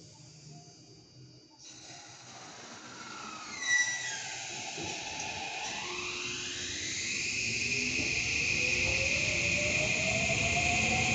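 Hokuso 7500 series electric train pulling out: an air hiss, a sharp clunk about four seconds in, then the inverter and traction motor whine starting up and rising steadily in pitch as the train gathers speed.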